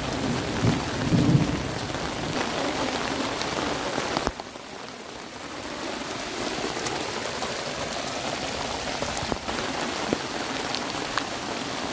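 Heavy rain falling steadily on an umbrella held over the microphone and on the wet path. The rain sound drops briefly about four seconds in, then returns.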